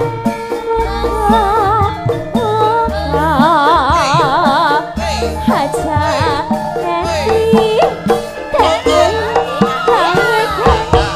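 A woman singing a Javanese campursari song with wide vibrato, accompanied by a gamelan ensemble with regular drum strokes and a repeating low bass note.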